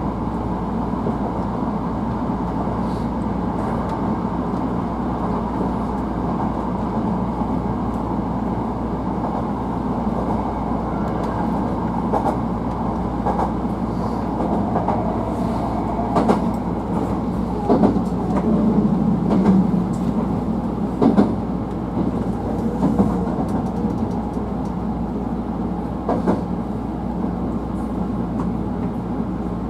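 Running noise of a Hankyu 1000 series electric commuter train, heard from inside the car: a steady rumble with scattered sharp clicks of the wheels over rail joints, more of them in the second half.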